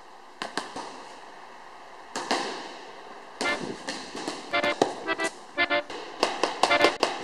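Punches landing on boxing mitts as sharp smacks, a couple at first and then in quick flurries. From about halfway there are also short, clipped musical notes.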